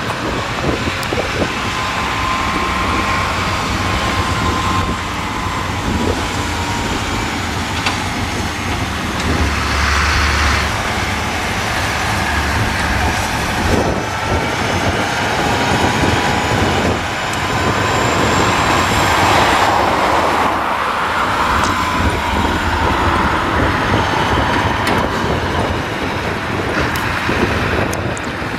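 Diesel engines of farm machinery working close by: a telehandler handling a large square hay bale and a Fendt tractor driving past. A whine rises and falls in pitch over the engine noise.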